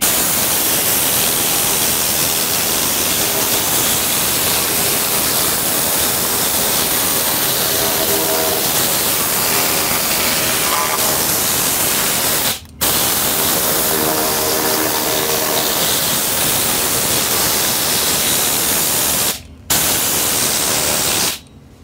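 Tornador compressed-air cleaning gun spraying a mix of rubbing alcohol, blue Windex and water over an amplifier circuit board to blow out solder debris and crud. It makes a loud, steady hiss of air and spray that breaks off briefly twice, about two-thirds of the way through and again near the end, then stops.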